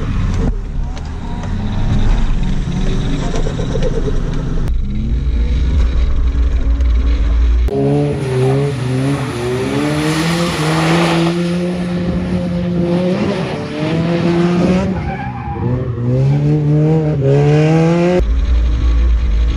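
Toyota JZX100's straight-six engine revving up and down again and again as the car drifts, with its tyres skidding on wet tarmac, loudest about ten seconds in. At the start and near the end the engine is heard as a low drone from inside the cabin.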